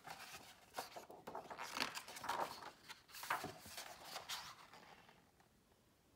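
Pages of a hardcover picture book being turned by hand: a series of crisp paper rustles and swishes over about five seconds, then stopping.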